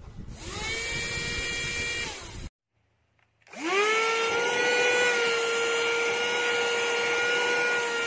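Rechargeable handheld car vacuum cleaner's motor switching on and spinning up to a steady high whine. It cuts off about two and a half seconds in, then starts up again a second later and runs on steadily.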